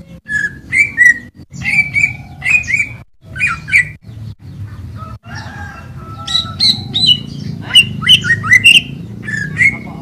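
Greater green leafbird singing: quick runs of sharp, chirping whistles that slide up and down in pitch, in two spells with a short lull about halfway through, over a steady low background rumble.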